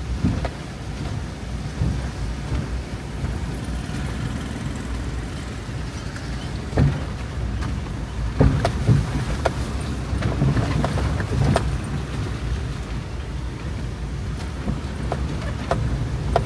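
Car heard from inside the cabin while driven slowly over a potholed, broken road: a steady low rumble of engine and tyres, with scattered knocks and rattles as the wheels drop through potholes, most of them in the middle of the stretch.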